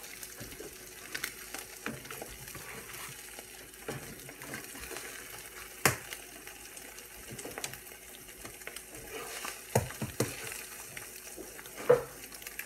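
Eggs frying in butter in a frying pan, a steady sizzle, with a spatula knocking sharply against the pan several times, loudest about six seconds in and again near the end.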